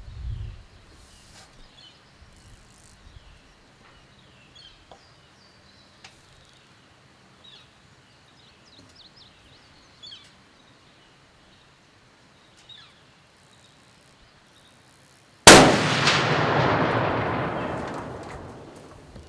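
A custom high-powered muzzleloading rifle fired once, about fifteen seconds in: a sudden report followed by a long echo that fades over about three seconds. The gun puts out heavy concussion. Before the shot, birds chirp faintly.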